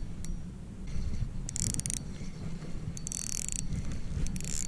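Ice-fishing reel cranked in short bursts of gear ticking, about four times, while bringing in a hooked fish.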